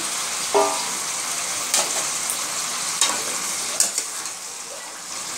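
Mutton pieces in spice paste sizzling in a pan as they are stir-fried (kosha), with a spatula stirring and scraping against the pan a few times.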